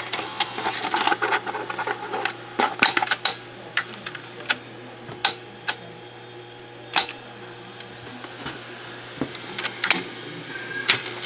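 Irregular mechanical clicks and clacks from an opened JVC BR-S611 S-VHS VCR: its tape transport mechanism moving and its front-panel buttons being pressed, over a steady low hum. The machine is working with a fault, having just shown error 06.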